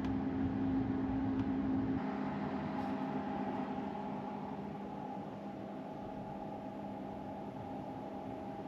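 A steady mechanical hum with a few held tones, an engine or motor running; it eases a little and shifts slightly in pitch about two seconds in.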